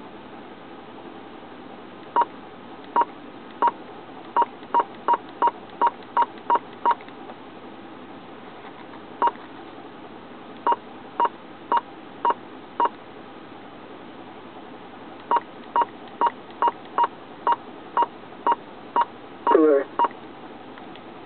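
Keypad beeps from a GE Orion (M/A-COM) hand-held radio controller: about two dozen short, single-pitch beeps, one for each button press, in quick runs with a few pauses, over steady radio hiss. Near the end there is a brief burst of received radio audio from the speaker.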